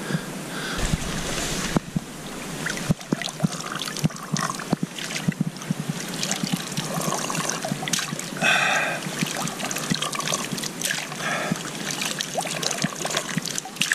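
Water trickling and dribbling with small splashes, among irregular clicks and knocks, as clear lake water is scooped up for a drink.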